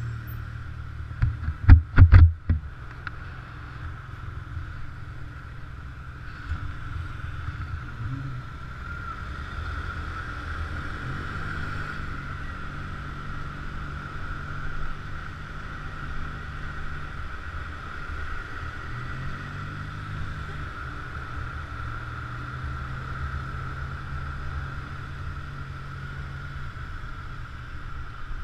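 Honda scooter engine running under way, its note stepping up and down with the throttle, with a steady higher hum over it. A quick cluster of loud knocks sounds about two seconds in.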